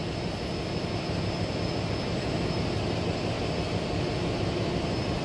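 Steady din of a ship's engine-room machinery running, a dense low hum with a thin high whine above it.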